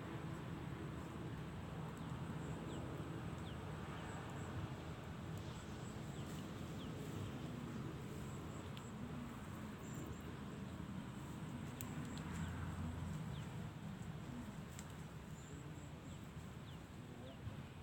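Outdoor ambience: a low steady rumble with faint, scattered bird chirps.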